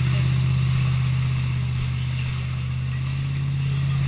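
Wake boat's inboard engine running steadily under tow, a low even drone, over the hiss of the churning wake.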